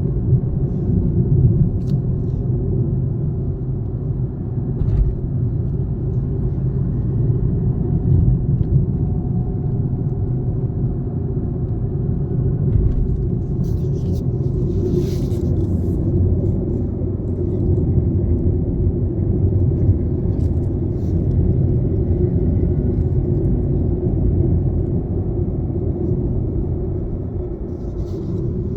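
Inside a Tata Altroz cabin at about 60 km/h: a steady low engine and road rumble, with no rattle from the left side, the sign that the rattle has been cured. A brief hiss about halfway through.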